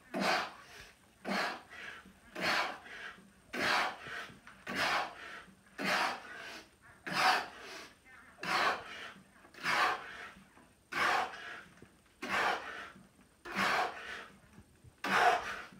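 A man breathing hard in short, forceful breaths, about one every 1.2 seconds, in time with rapid push-ups.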